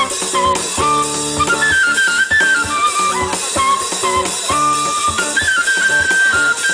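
Live band music: a flute-like melody, moving in short steps and ending on a long held note, played on a homemade wind instrument built from a bicycle wheel, over electric guitar and a drum kit.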